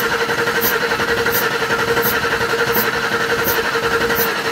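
Ford Explorer engine being cranked over by the starter without firing, accelerator held to the floor, for a compression test. It makes a steady whirring cranking sound.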